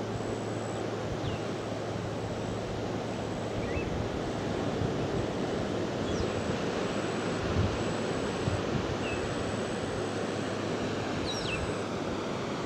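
Steady outdoor rush of wind and distant surf, with a few faint, short high chirps scattered through.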